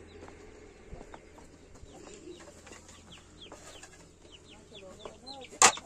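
Chickens clucking, with a steady run of short high chirps that fall in pitch. A few low arched clucks come about five seconds in. A single sharp knock just before the end is the loudest sound.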